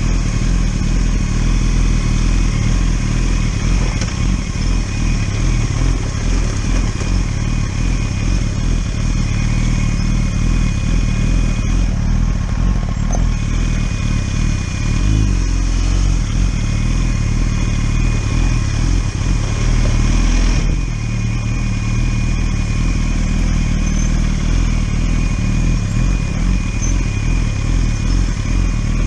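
A 1000cc inline-four sport motorcycle engine running steadily under way, with the level briefly falling a little about twenty seconds in.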